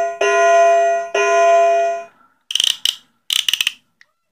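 A toy train set's sound effect: three ringing bell-like tones of the same pitch, each about a second long. About half a second later come two short bursts of plastic clicking, like a ratchet.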